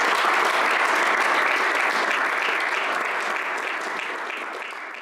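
Audience applauding, slowly fading away over the last couple of seconds.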